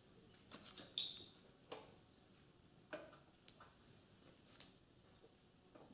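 Sparse light metallic clicks and taps, about eight spread over several seconds, one about a second in ringing briefly: hardware being worked as the lower engine-mount bolt is fitted through a Yamaha YL1's engine and frame.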